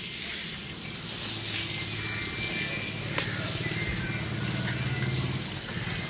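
Water spraying from a garden hose onto a bull's hide and splashing on a wet tiled floor, a steady hiss, over a low steady hum. There is one sharp click about three seconds in.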